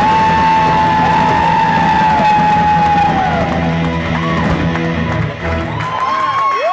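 Live rock band playing loud: electric guitar and long, bending high notes held over bass and drums. The low end drops out about five seconds in, leaving bent notes ringing, as at the end of a song.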